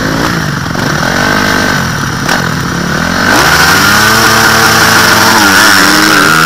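Dirt bike engines revving up and down in short blips, then held at higher revs and louder from about halfway through as a bike pulls away.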